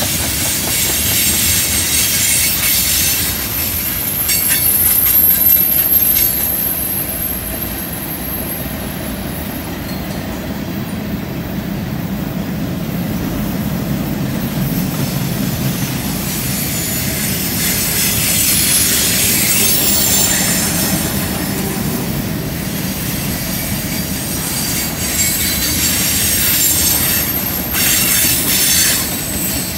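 Freight cars of a CN train rolling past on a curve: a steady rumble of steel wheels on rail, with a thin, high flange squeal from the wheels grinding through the curve, strongest in the first six seconds and again near the end.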